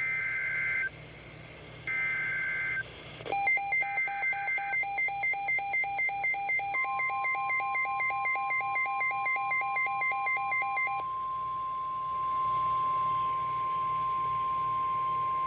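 NOAA Weather Radio emergency alert signalling: three short warbling SAME data bursts announcing a flash flood warning, then a fast, rapidly pulsing electronic alarm beep. About seven seconds in, the steady single-pitched 1050 Hz warning alarm tone starts; the beeping stops about four seconds later while the tone holds on to the end.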